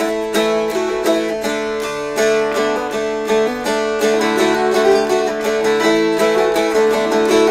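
Two mountain dulcimers strummed together, playing a quick melody over steady ringing drone strings.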